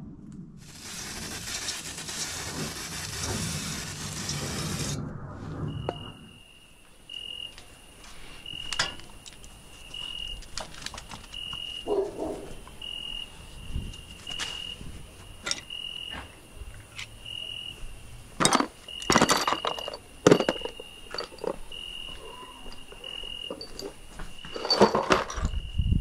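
A hiss lasting about four seconds, then scattered knocks and clatter of tools and objects being handled, loudest near the end. Through the clatter, a faint high chirp repeats about every second and a half.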